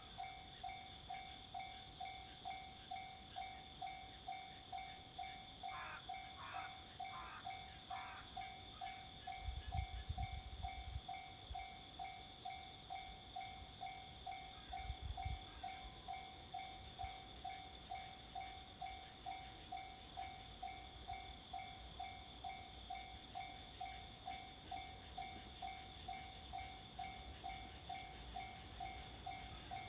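Japanese level-crossing electronic warning bell ringing, an even ding repeating about one and a half times a second. A low rumble comes about ten seconds in and again around fifteen.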